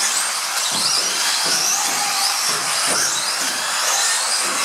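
Several electric mini off-road RC cars racing, their motors whining high and gliding up and down in pitch as they accelerate and brake, several at once.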